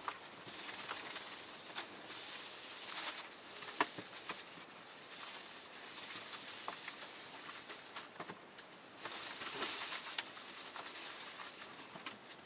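Dry hay rustling as a bale is broken apart and shaken out over the stall floor for bedding, with a few short clicks and knocks.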